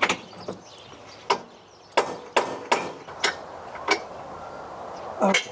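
A metal A/C mounting cradle being pounded into place: a series of about nine sharp, irregularly spaced knocks with a slight metallic ring.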